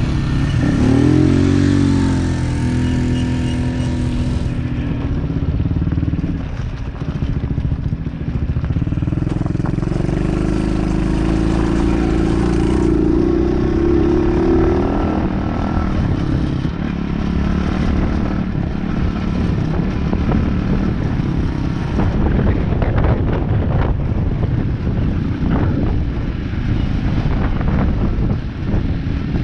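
Off-road vehicle's engine running while riding, revving up and easing off: the pitch swings up and down about a second in and climbs again for several seconds in the middle. Short knocks and rattles come through in the second half.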